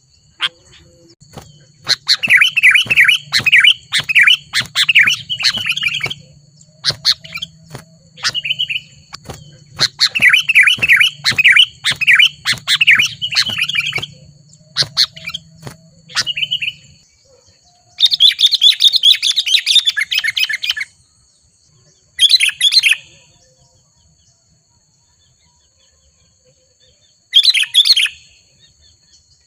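Sooty-headed bulbuls (kutilang) calling in loud bouts of rapid, bubbling chirps, with pauses between the bouts. A faint steady high whine runs underneath.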